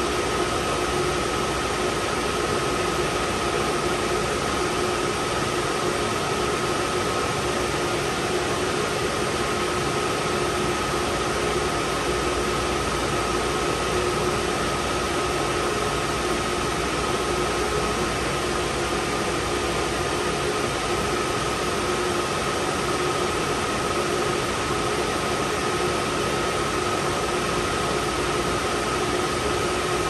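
Steady machine noise: an even hiss with two constant hum tones, one mid-pitched and one higher, unchanging throughout.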